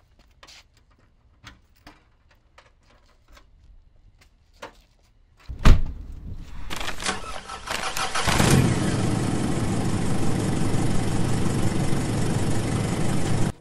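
Faint footsteps and small clicks, then a car door slamming shut about six seconds in. The car's engine then cranks, starts, and runs loudly and steadily until it cuts off suddenly.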